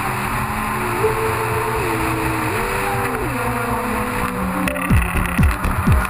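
Rally car at speed heard from onboard, steady engine and road noise with a few tones stepping up and down in pitch. Near the end a fast thumping beat of deep, falling kicks, two or three a second, comes in over it.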